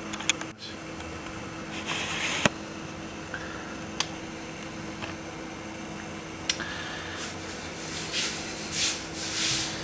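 Steady low hum of room tone with a few sharp clicks and brief rustling, typical of a phone or camera being handled close to the microphone.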